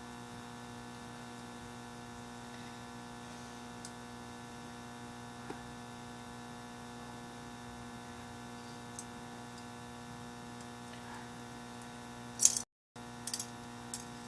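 Steady electrical hum, with a few faint ticks. About twelve seconds in there is a sharp loud click, the sound cuts out completely for a moment, and a few more clicks follow.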